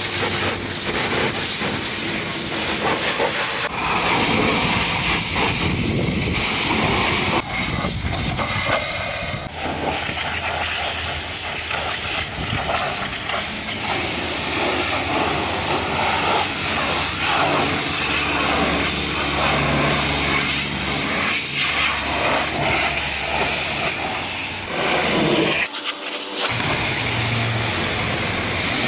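High-pressure water spray hissing steadily as it blasts mud off a truck, with a low hum underneath; the low hum drops out briefly near the end.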